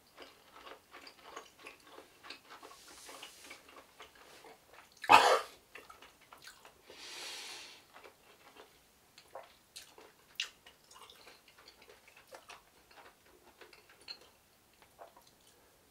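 A man chewing a mouthful of grilled bone-in lamb, with small wet mouth clicks throughout. One loud, brief sound comes about five seconds in, and a long breathy exhale follows about seven seconds in.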